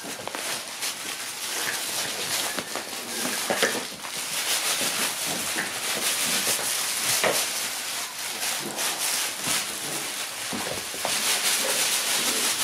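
Shiba Inu puppies scuffling at play: claws skittering on a smooth floor and a nylon play tunnel rustling as they push into it, a steady busy scratching with many small clicks.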